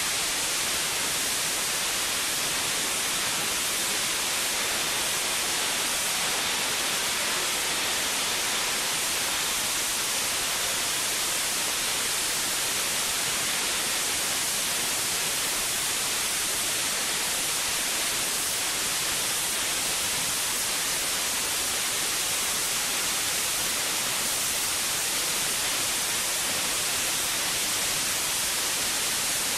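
Steady, even hiss that does not change.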